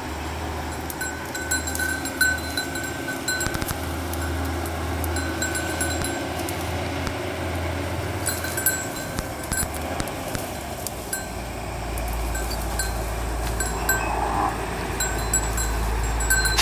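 Small bells on grazing goats clinking on and off, over a steady low rumble of road traffic that swells in the last few seconds.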